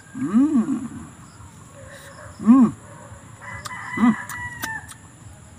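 Chickens calling nearby: three loud calls, each rising and then falling in pitch, the first close to a second long and the later two shorter. A few faint clicks come near the end.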